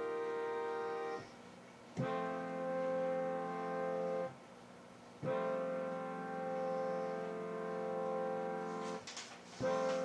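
Multi-chime train air horn sounding a steady chord in long blasts: one ends about a second in, two long blasts follow, and short blasts come near the end.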